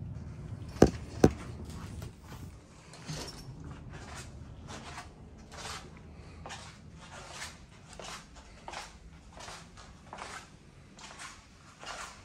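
Two sharp knocks close together about a second in, then footsteps at a steady walking pace, about three steps every two seconds.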